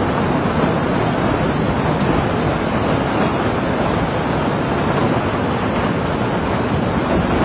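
Hailstorm with heavy rain, hail and water coming down hard in a steady dense hiss of noise with no letup.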